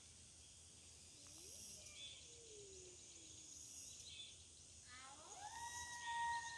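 Quiet outdoor ambience with insects chirring steadily and high-pitched. A faint call slides downward in pitch about two seconds in, and a louder drawn-out call rises and then holds steady near the end.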